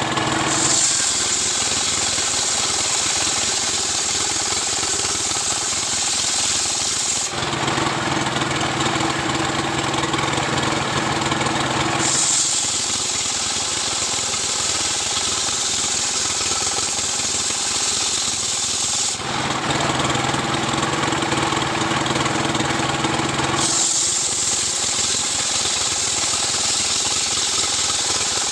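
Two-stroke chainsaw milling a coconut-palm log, running loud and continuously. Its sound switches back and forth between a harsh, hissy high-pitched cutting sound and a lower, steadier hum twice, for about five seconds each time.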